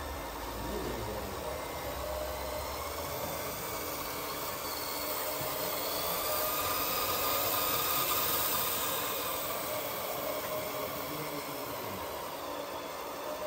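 Radio-controlled model truck or machine running: a faint, wavering motor whine over a steady hiss that swells slowly to its loudest a little past the middle and then eases off.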